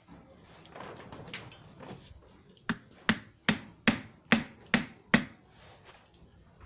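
Seven quick hammer blows on steel, about two and a half a second, tapping the screw clamp that presses a new ball pin into a steering tie-rod end. Faint handling noise comes before the blows.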